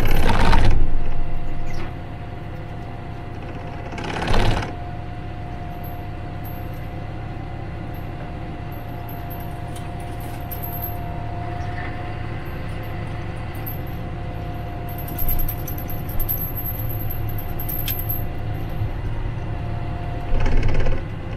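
John Deere tractor's engine running steadily as it drives along a snowy trail, with a steady whine over a low rumble. Louder rushing noise lasts the first two seconds, comes again briefly about four seconds in, and returns near the end.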